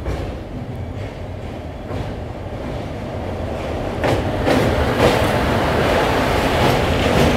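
Passenger train running with a steady rumble. From about four seconds in, an oncoming train passes close on the next track and the noise grows louder, with a few sharp clanks.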